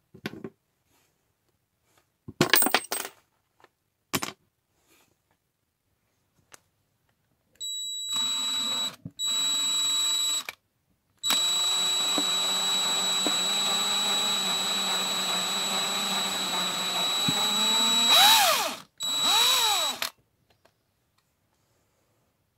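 Small electric drill boring into the end of a carved wooden handle clamped in a vise: a steady high whine lasting about twelve seconds with two brief stops. Near the end its pitch dips and recovers twice as the bit works into the wood. Before the drill starts there are a few short scraping clicks from hand-carving the wood.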